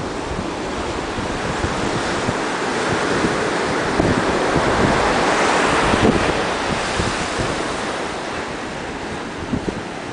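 Ocean surf breaking and washing up the beach, swelling to a peak about halfway through and easing off, with a stiff wind buffeting the microphone in low rumbles.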